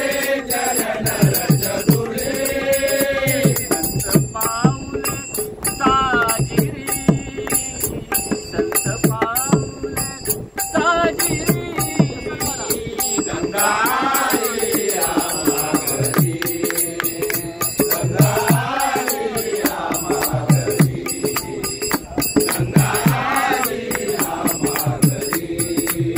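A group of men singing a Marathi abhang (devotional song) in unison, with small hand cymbals (taal) struck in a steady rhythm.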